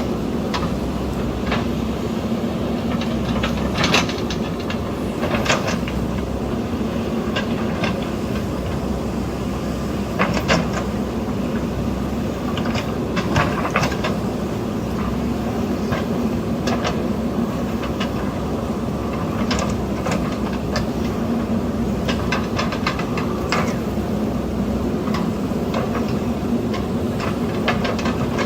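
JCB backhoe loader's diesel engine running steadily as the machine works. Irregular clanks and knocks from the working machine come every second or two.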